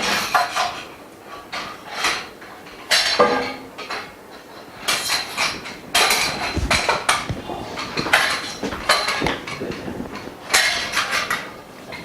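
Frame bars and fittings of a dust-free workstation knocking and clinking against each other as it is being assembled, in irregular clattering bursts about every second or two.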